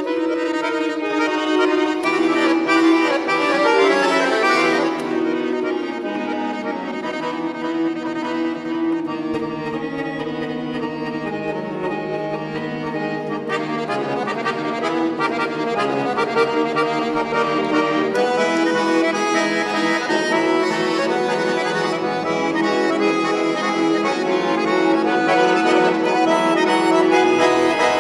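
Bayan, the Russian chromatic button accordion, playing a solo piece: a melody moving over a long-held note beneath it.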